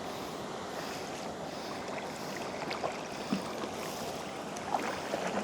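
Kayak being paddled along a river: steady water noise with a few faint light knocks.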